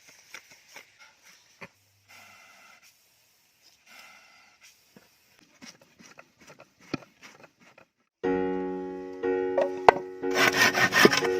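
Faint wooden taps, clicks and short rubbing or scraping sounds. About eight seconds in, a loud music track with a plucked, keyboard-like melody starts.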